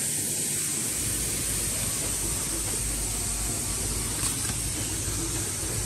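Steady mechanical hiss and hum from a running automatic cable tie machine and its vibratory bowl feeder, with a few faint clicks about four seconds in.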